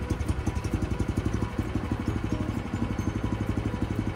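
Gasoline engine of a Little Beaver post hole digger's power unit running at a steady idle with an even, fast pulsing beat. It has just started on the first pull and is warming up.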